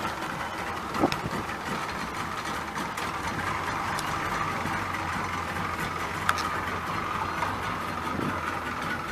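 A wooden lake boat's motor running steadily under way, with water and wind noise, and two sharp knocks about a second in and about six seconds in.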